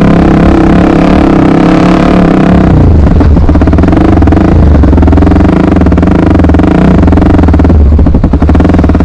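Honda XR 250 Tornado's air-cooled single-cylinder four-stroke engine running loud and steady under way, its note changing about three seconds in.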